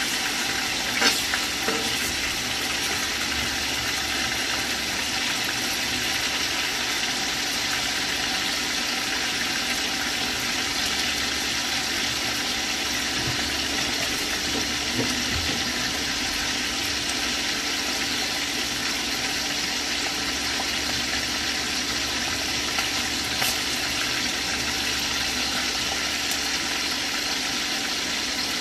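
Chicken breast pieces frying in oil in a non-stick pan, a steady sizzle. A couple of brief taps from the spatula come about a second in and again near the end.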